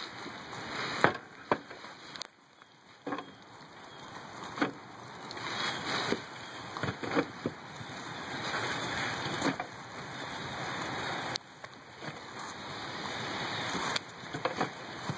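Pigs feeding in dry corn stalks and husks: scattered crunching and cracking as they root and chew, over a steady rushing noise that grows louder.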